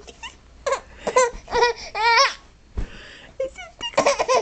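Infant laughing while being tickled: several short bursts of high-pitched laughter and squeals, with a longer squeal about two seconds in.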